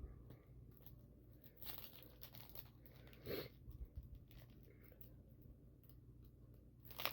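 Faint crinkling and rustling of a foil Pokémon booster pack and its cards being handled, a few short rustles over near quiet.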